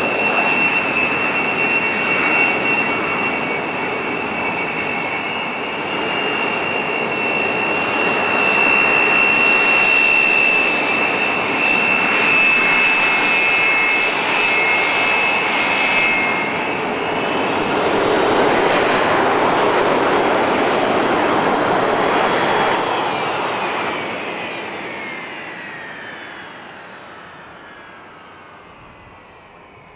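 Hawker Siddeley Dominie T1 jet trainers' Bristol Siddeley Viper turbojets running as the aircraft taxi close by: a jet roar with a loud, steady high whine. About halfway through the whine slides down in pitch, and the sound fades away over the last several seconds.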